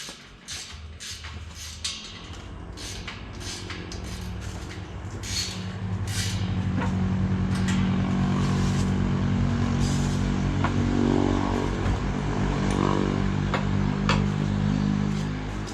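An engine running steadily, growing louder about six seconds in, with a few sharp taps in the first seconds.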